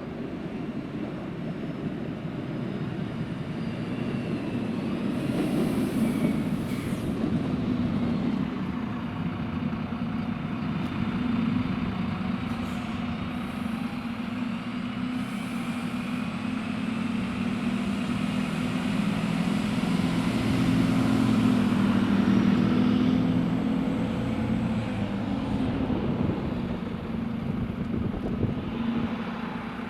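Diesel train's engine running, getting louder to a peak about two-thirds through and then easing off, with faint high squeals above the engine hum.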